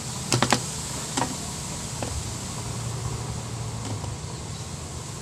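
Sharp clicks and knocks of a monitor's metal chassis and power board being handled and set down on the bench: three quick loud clicks at the start, one more about a second in, and fainter ones later, the last as the power cord is pushed into the monitor. A steady low hum runs underneath.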